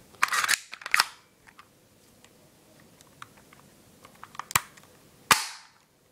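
Crosman Stinger P9 spring-powered airsoft pistol being cocked, a scrape and a sharp click in the first second, then handled with small clicks and fired: two sharp snaps about four and a half and five seconds in, the second the loudest.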